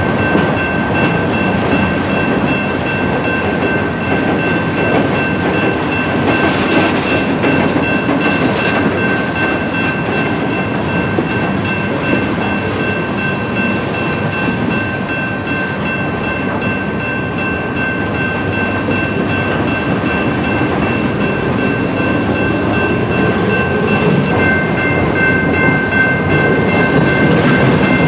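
Freight train of loaded flatcars rolling past a grade crossing: a steady rumble and clatter of steel wheels on the rails, with the crossing warning bell ringing as a steady high tone. A second, slightly lower tone joins near the end.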